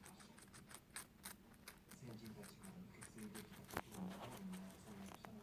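Guinea pig chewing vegetables: a quick, irregular run of small crisp crunching clicks, with a faint voice murmuring in the background.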